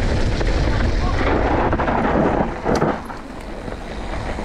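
Wind buffeting the microphone and the rumble of a mountain bike rolling over a rough trail, with a few sharp knocks. The noise eases off about three seconds in.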